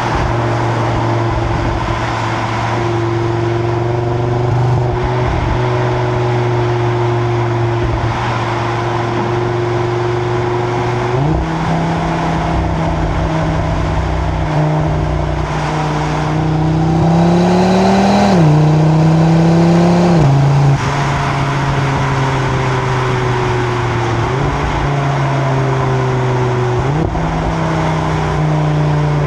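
Exhaust of a stock 2025 Audi RS3's turbocharged five-cylinder, recorded at the rear of the car while cruising at Autobahn speed over steady road and wind noise. The engine pitch steps up several times as gears are dropped. It climbs under a short burst of throttle about two-thirds of the way through, then falls back.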